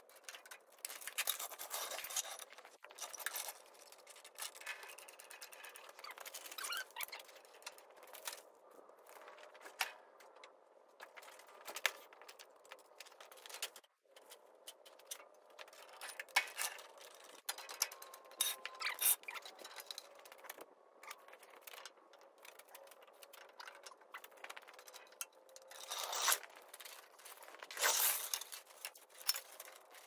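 Irregular scrapes, clinks and rattles of hands-on work on the machine, coming in scattered bursts with the loudest about a second in, in the middle, and near the end.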